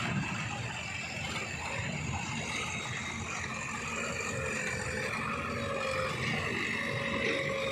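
Heavy diesel machinery engine running steadily under load, with a thin steady whine that becomes clearer in the second half.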